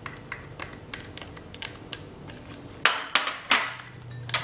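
White plastic spatula clicking and scraping against glass bowls as chopped capsicum is scraped in and stirred into a thick cream dressing, with a few louder knocks about three seconds in.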